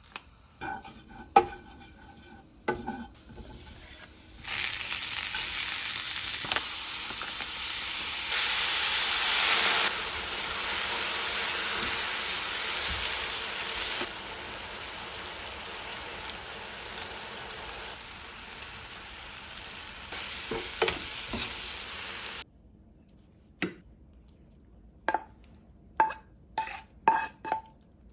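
Ingredients for a mala stir-fry sizzling in a hot frying pan. The sizzle starts about four seconds in and stops suddenly a few seconds before the end. A few clicks come before it, and a series of sharp utensil taps on cookware comes after.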